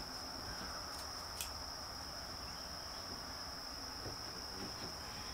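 Insects trilling outdoors: one steady high-pitched tone that doesn't let up, with a faint click about one and a half seconds in.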